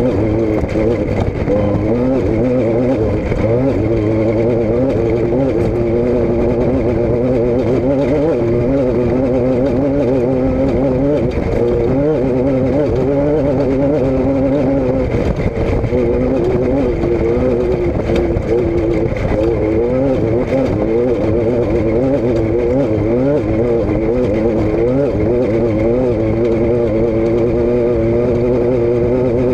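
A vehicle engine running continuously, its pitch wavering up and down as the revs rise and fall.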